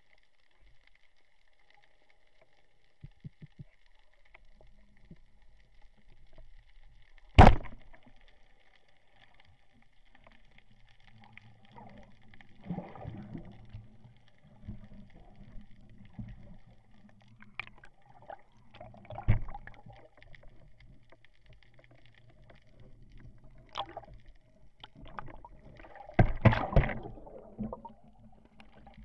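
Underwater sound of a band-powered speargun firing: one loud, sharp crack about seven seconds in over a faint steady hiss. Later come a low rumble, scattered knocks, and a burst of bubbling and splashing near the end.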